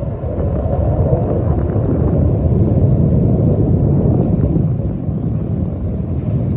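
Low, steady rumble of the jet engines of a formation of Black Eagles T-50B jets flying past at a distance.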